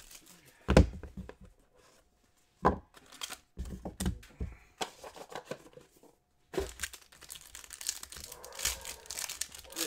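Foil wrapper of a Panini Court Kings basketball card pack crinkling and tearing open. A few sharp thumps come first, then the crackly tearing fills the second half.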